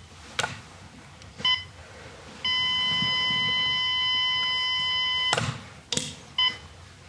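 Electronic shogi game clock beeping once a second as a player's time runs under ten seconds, then a steady beep of nearly three seconds, cut off by a sharp clack of the clock button being pressed. Wooden shogi pieces clack onto the board in between.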